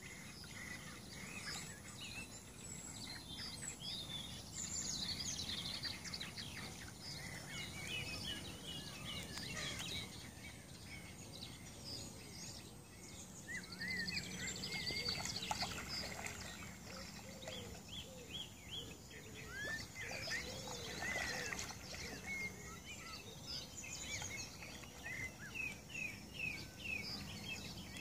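Small songbirds chirping and singing in many short notes, over a steady low background rumble.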